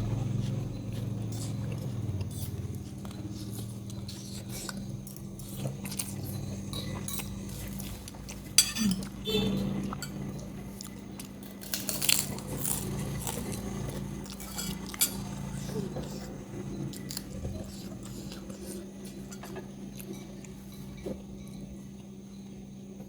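Cutlery clinking and scraping on a plate during eating, with chewing and a few sharper clinks. A steady low hum runs underneath.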